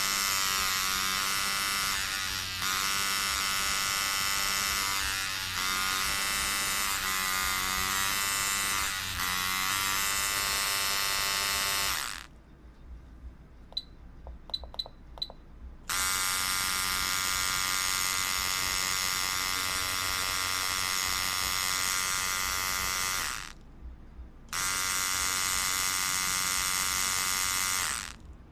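Tattoo machine buzzing steadily in three runs: a long one of about twelve seconds, then one of about seven seconds, then one of about four. Between the first two runs there is a pause with a few faint clicks.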